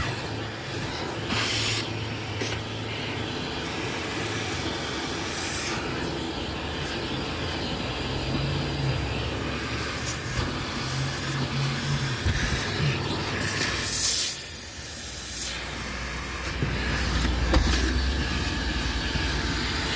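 Shop vac running steadily, its hose nozzle sucking along car floor carpet. The tone of the suction shifts several times, with a brief sharper hiss about two-thirds of the way through.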